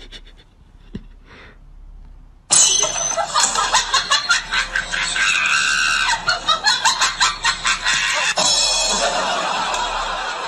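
A person screaming loudly, starting suddenly about two and a half seconds in and carrying on in a harsh, rapidly pulsing shriek.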